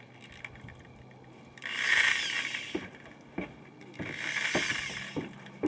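Brake cylinder hone spun by a drill in two short bursts of about a second each, kept slow for honing out a gritty brake wheel cylinder bore.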